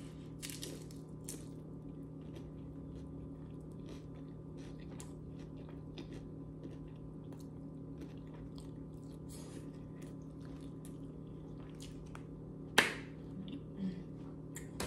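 Close-miked chewing and mouth sounds of a person eating: many small clicks over a steady low electrical hum. A single sharp knock about thirteen seconds in is the loudest sound.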